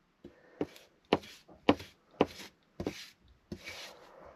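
A series of sharp knocks, about two a second, each trailing off in a short hiss.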